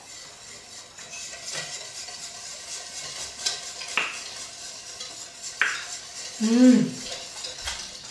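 A wire whisk stirring and scraping round a stainless steel mixing bowl of evaporated and condensed milk, with occasional sharp clinks of the wires on the metal. Near the end comes a brief hummed voice sound.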